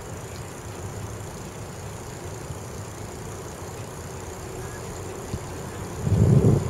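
Steady low rumble of road traffic, with a short, louder low rumble near the end.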